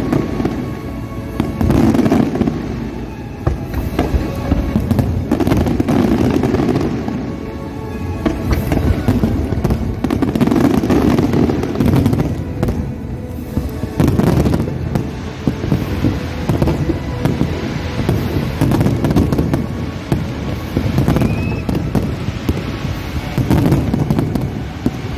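Large fireworks display going off without a break: overlapping booms and crackling bursts from many shells at once, rising and falling in waves.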